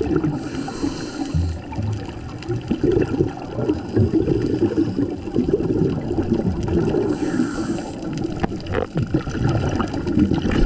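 Scuba diving underwater: a diver's regulator breathing, with exhaled bubbles gurgling and rushing. Short bursts of higher hiss come about half a second in and again around seven seconds.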